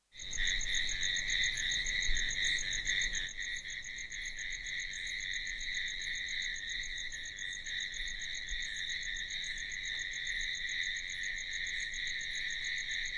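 Crickets chirring: a steady, fast-pulsing high trill that comes in suddenly and keeps on without a break, the usual night-time insect background.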